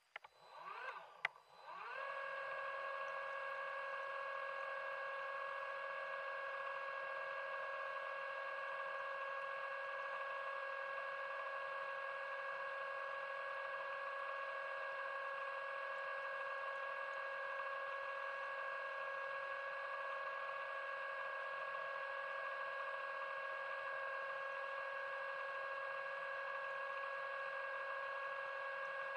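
Underwater scooter (diver propulsion vehicle) motor, heard underwater: a few short rising whirs, then it spins up about two seconds in and holds a steady, even whine.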